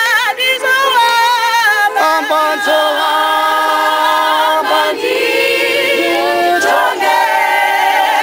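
A choir singing a cappella, several voices holding long notes together.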